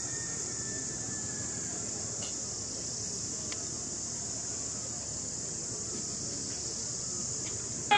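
Steady, high-pitched insect chorus drone, unbroken throughout. A faint high tone falls slightly during the first couple of seconds.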